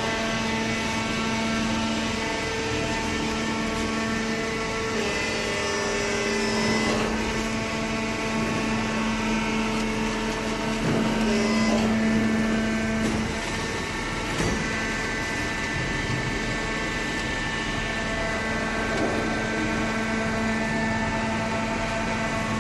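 Horizontal hydraulic cardboard baler running: a steady machine hum from its hydraulic power unit, with the pitch of some tones shifting a few times and a few short knocks.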